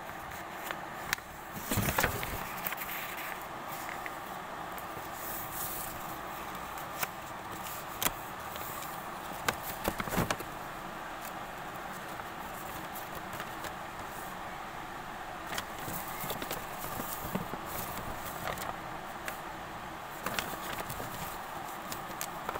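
A sheet of paper being handled and folded: scattered crinkles and taps, over a steady background hiss.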